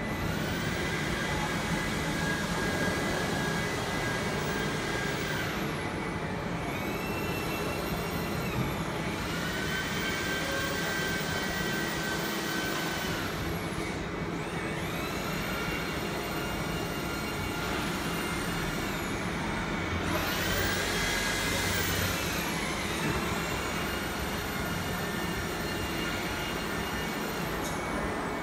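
QUICK K6090T CNC routers running: high motor whines with many overtones glide up in pitch, hold for a few seconds and glide back down about five times as moves start and stop, over a steady machine noise.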